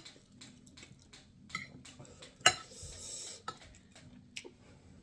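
Cutlery clinking and tapping on a plate while eating, with one sharp ringing clink about two and a half seconds in among lighter taps.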